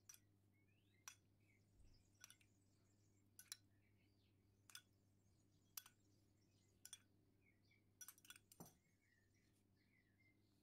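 Metal spoon clinking against a glass bowl and glass baking dish while tomato passata is dabbed on: light, sharp clinks about once a second, with a quick run of several near the end.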